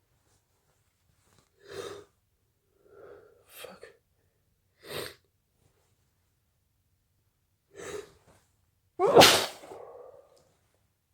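A person with a head cold sneezing: a few short, sharp breathy sounds, then one loud sneeze about nine seconds in.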